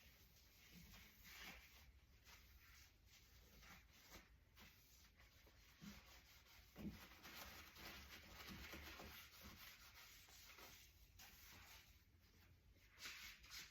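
Faint scrubbing and rubbing inside a dishwasher tub, with a few soft knocks; near silence overall.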